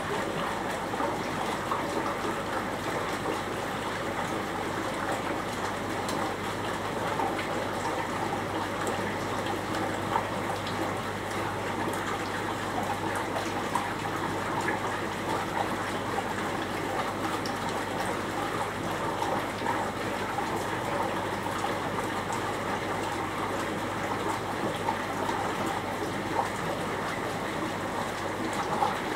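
Steady trickling and gushing of water circulating through aquarium tanks, with a steady low hum underneath.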